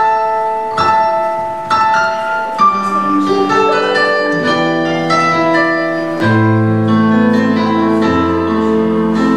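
Instrumental music: a slow line of single ringing notes that thickens into chords, with deep bass notes coming in about six seconds in.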